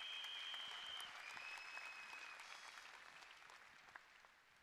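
Large audience applauding, the applause fading away steadily, with two long high whistles over it in the first couple of seconds.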